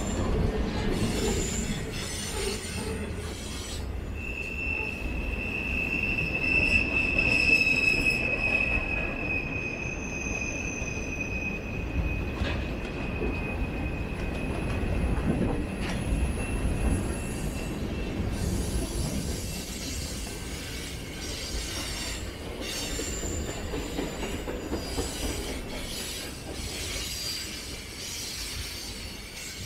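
Freight train cars rolling past with a steady low rumble of steel wheels on the rails. From a few seconds in, the wheels give a long, high-pitched steady squeal lasting about twelve seconds before it fades.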